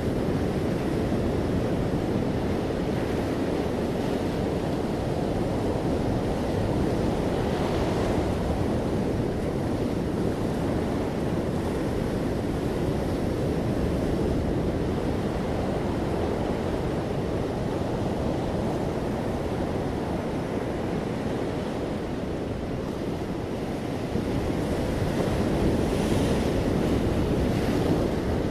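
Sea waves washing onto a beach: a steady low rushing surf, with a wave breaking about eight seconds in and a louder surge of breaking water near the end.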